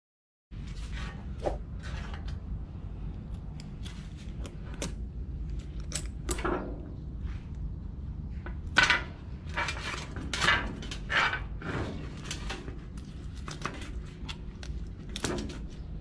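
Scraping, clicking and knocking as barnacles are picked and pried off a small sea turtle's shell, with hard shell pieces knocking on the wooden board. A steady low rumble runs underneath.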